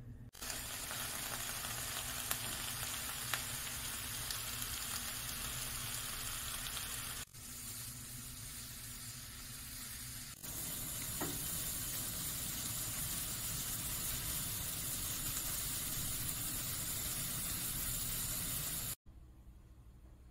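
Oysters on kelp sizzling and steaming in a frying pan, partly under a loose aluminum-foil cover: a steady sizzling hiss. It drops suddenly in level a few seconds in, comes back up about three seconds later, and cuts off abruptly near the end.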